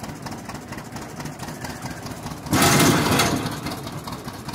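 John Deere two-cylinder tractor engine running steadily at low speed. About two and a half seconds in, a loud burst of noise lasts under a second and then fades.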